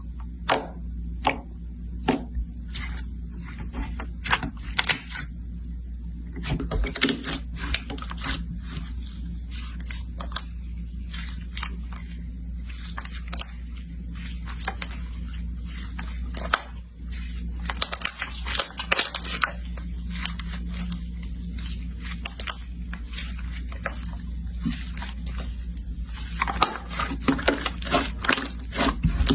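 Slime being squeezed and poked by hand, giving many irregular sharp sticky clicks and pops over a steady low hum.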